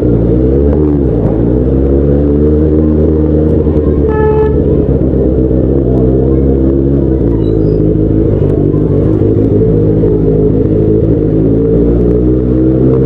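Benelli 600i superbike's inline-four engine running steadily while riding, its pitch dipping and climbing again about a second in. A horn toots briefly about four seconds in.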